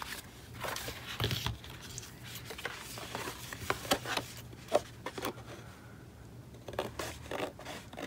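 Scissors trimming the overhanging edge of patterned paper on a notepad cover: a scattered series of short snips, with paper rustling as the cover is handled between them.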